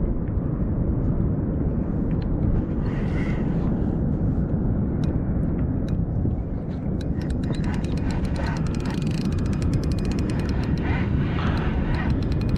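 Steady low rumble of wind on the microphone. From about seven seconds in, a fishing reel clicks rapidly as a fish is hooked and played on the bending rod.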